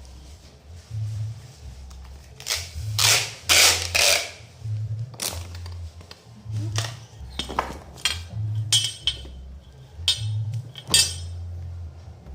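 A string of sharp clinks and knocks, as of hard objects being handled and set down, bunched in two flurries. Under them runs background music with a bass line that steps up and down about once a second.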